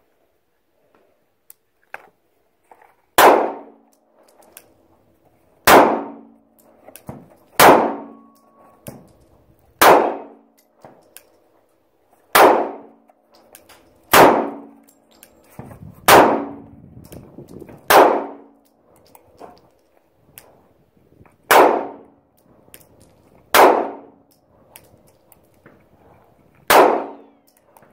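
Eleven gunshots fired one at a time, about two to three seconds apart, each with a ringing tail.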